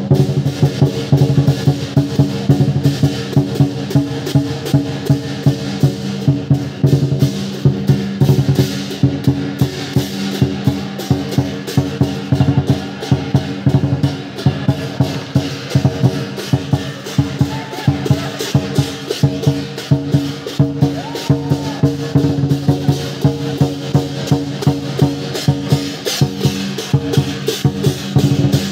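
Lion dance percussion: a big Chinese drum beating a steady, driving rhythm, about two to three strikes a second, over the ringing of cymbals and a gong.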